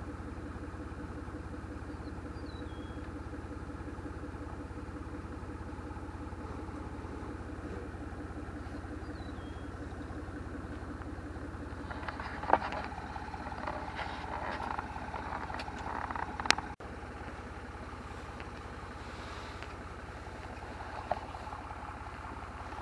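Tractor engine running steadily, with a run of mechanical clatter and sharp clicks about halfway through.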